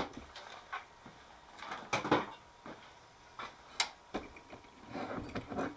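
Metal parts of a small lathe's toolpost being handled and lifted off: a few separate sharp clicks and knocks, about two and four seconds in, with softer handling noise near the end.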